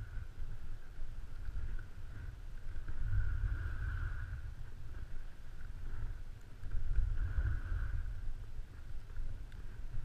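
Wind rumbling on the microphone and a snowboard sliding and scraping over groomed snow. Both swell and ease together about every three to four seconds.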